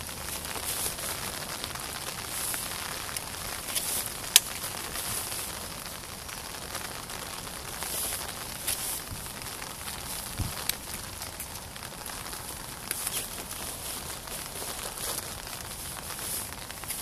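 Steady patter of rain, with a few sharp clicks.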